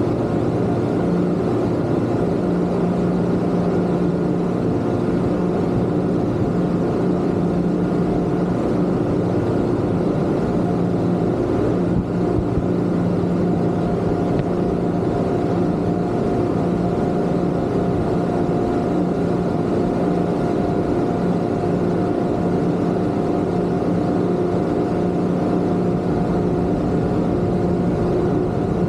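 Twin Yamaha 250 outboard motors of a Kingfisher 3025 GFX boat running steadily under way: a constant engine drone with a steady hum of several held tones.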